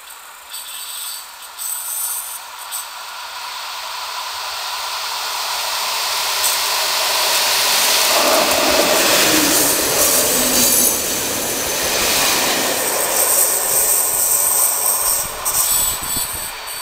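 Diesel train approaching out of a tunnel, growing steadily louder, then passing close by with its engine and wheels running over the rails. High-pitched wheel squeal is heard on the curve during the second half.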